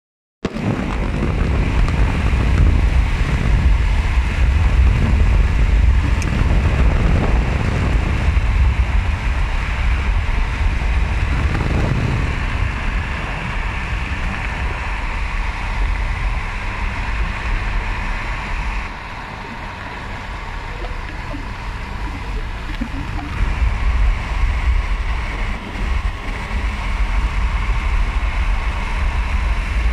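Steady road and wind noise from inside a moving car, a low rumble with wind gusting on the microphone. It eases a little past the middle, then rises again.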